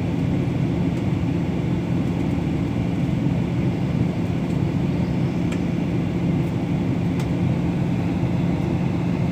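Airliner cabin noise in flight: a steady low roar of engines and airflow with a constant low hum, plus a couple of faint clicks in the middle.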